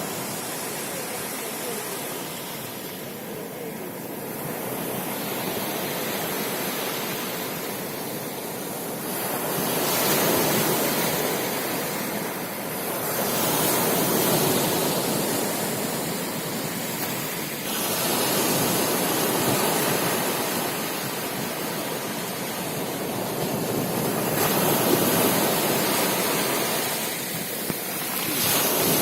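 Rough sea: waves surging and breaking in a continuous wash of surf, swelling louder every few seconds as each wave comes in.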